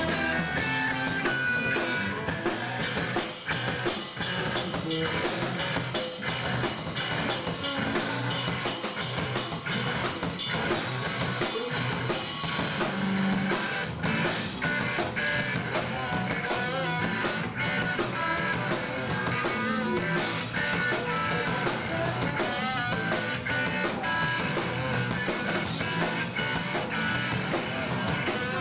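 Rock band playing live: electric guitars and a drum kit, loud and dense, with drum hits running steadily throughout.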